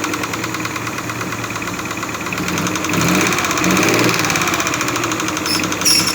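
Suzuki F5A three-cylinder engine idling with a rapid, steady knocking from a defective camshaft. A brief sharp click comes near the end.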